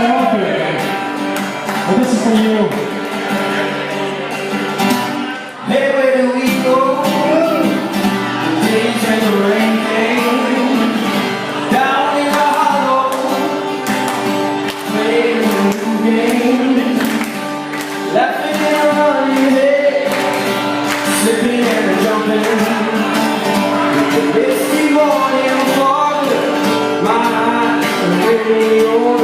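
Live band music: a male voice singing a pop song over a strummed guitar.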